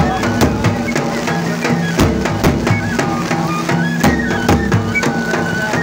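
Himachali Nati folk dance music: a stepping melody over a steady drum beat, with drum strokes about twice a second.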